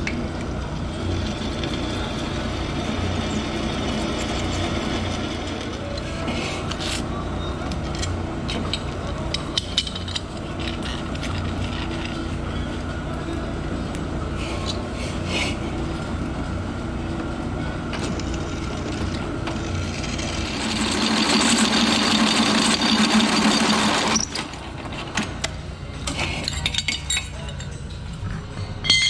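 Drill press running, its twist bit cutting a hole through a piece of metal angle clamped in a machine vise, with occasional clinks. The cutting grows louder and harsher for about three seconds near the end, then stops suddenly, and the press keeps running more quietly.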